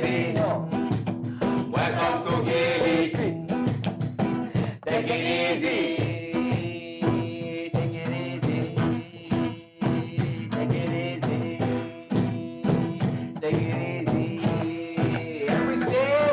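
Reggae song played by a small band: guitar and drums with a steady beat, with singing over it.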